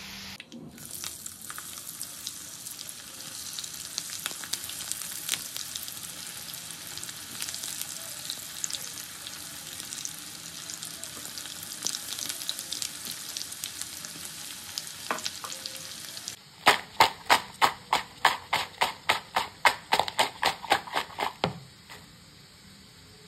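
Raw banana fries deep-frying in hot oil in a pan: a steady sizzle with crackles. About sixteen seconds in it gives way to a run of loud, evenly spaced strokes, about three a second, for some five seconds.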